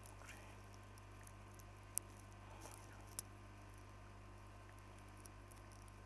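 Near silence: a steady low hum with faint scattered ticks and two sharper small clicks, about two and about three seconds in.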